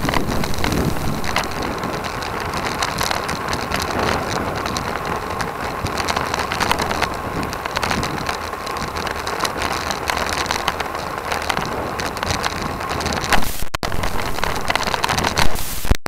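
Wind rushing over a bike-mounted action camera's microphone while riding a road bicycle in a group, mixed with a crackling rattle of tyre and road vibration. The sound cuts out for an instant twice near the end.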